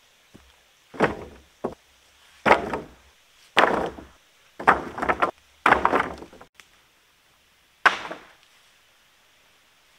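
Rough-sawn wooden boards dropped one after another onto a timber floor frame: about seven sudden wooden clatters and knocks at irregular intervals, some with quick double hits.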